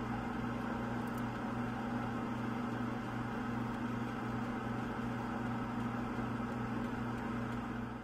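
Walk-in freezer's evaporator fans running: a steady electric hum with a low drone under an even whirring rush.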